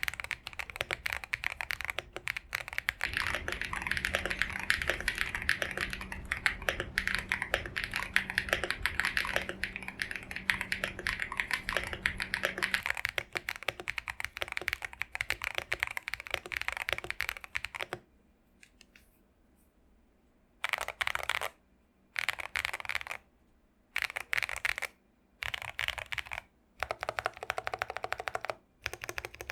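Typing on a custom mechanical keyboard: an AKKO ACR TOP 75 aluminium case with an FR4 plate, Krytox-lubed Tecsee Purple Panda switches, a tape mod and extra case foam. Fast continuous key presses run for about eighteen seconds, then stop for a couple of seconds. After that come short bursts of typing separated by brief pauses.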